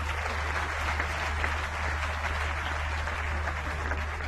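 Audience clapping steadily, a dense even patter of many hands, over a low steady hum.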